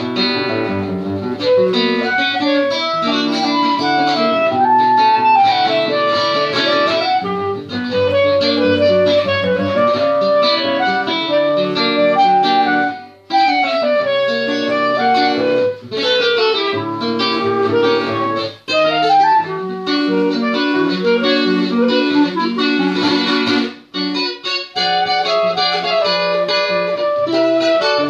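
Acoustic guitar and clarinet playing a duet: the clarinet carries a flowing melody over plucked guitar notes, with a few short pauses in the music.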